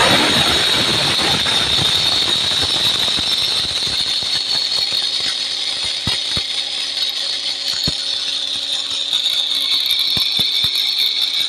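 Electric mixer grinder running at full speed on whole black peppercorns: a steady high motor whine with a dense rattle of peppercorns striking the blade and jar. After about four seconds the rattle thins to scattered clicks as the pepper turns to powder.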